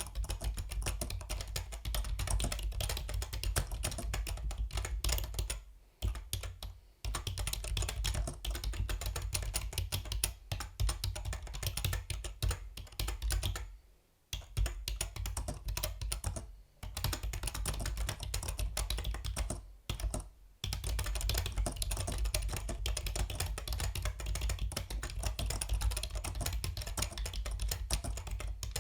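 Yunzii B307 mechanical keyboard being typed on fast and continuously, a dense run of key clicks broken by a few short pauses.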